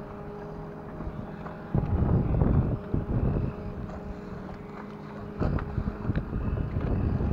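A boat's outboard motor idling steadily, with gusts of wind buffeting the microphone about two seconds in and again near the end.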